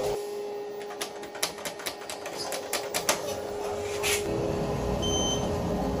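Inside a moving hotel elevator: a steady hum, a rapid run of sharp clicks in the first half, then a low rumble and a single short high-pitched beep about five seconds in as the car arrives at its floor.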